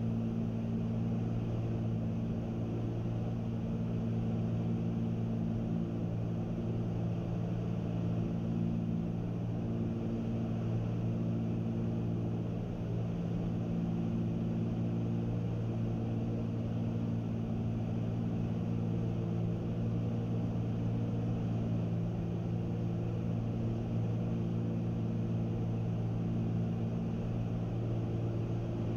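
Steady drone of a Cessna 310's two six-cylinder propeller engines at cruise power, heard inside the cabin.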